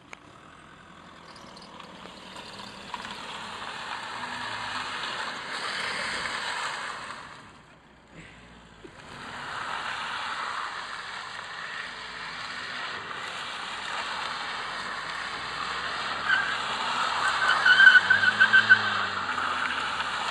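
Volkswagen Golf hatchback driving and turning on tarmac, its engine and tyres growing louder as it comes nearer. Near the end the engine revs rise and fall while the tyres squeal in a tight handbrake turn.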